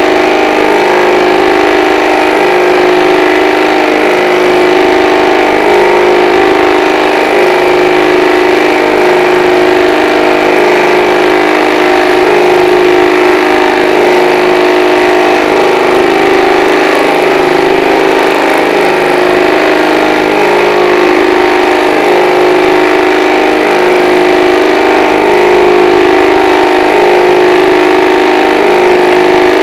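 Experimental pulsed magnetic motor, with coils on its rotor and permanent magnets on an aluminium-cased stator, running at a steady speed: a loud, even mechanical hum made of several steady pitches. The pitch holds level while bulbs are switched onto the coils' collapsing-field output.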